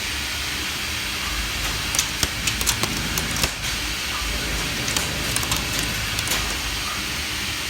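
Romi D1000 vertical machining centre cutting metal: a steady hiss over a low hum, with scattered sharp ticks from about two seconds in.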